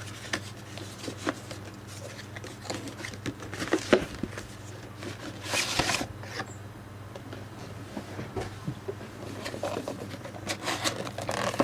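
Cardboard box and packaging being handled and opened: irregular rubbing, scraping and small clicks, with a louder scratchy rustle about halfway through.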